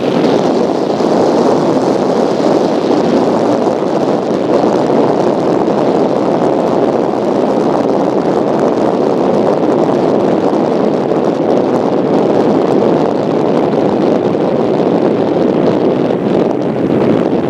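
Steady wind buffeting the microphone of a camera mounted on the front of a vehicle driving along a gravel road, mixed with tyre and road noise.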